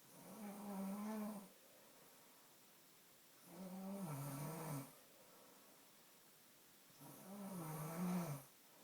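Snoring: three long, droning snores, each about a second and a half long with a wavering pitch, at an even pace of roughly one every three and a half seconds.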